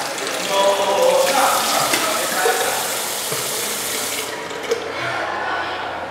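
Water running from a bathroom sink tap into the basin. It stops about four seconds in as the tap is turned off, and a short knock follows.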